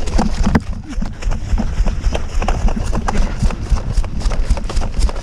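Running footsteps with the camera and gear jostling: a rapid, uneven string of heavy thuds and rattling clicks.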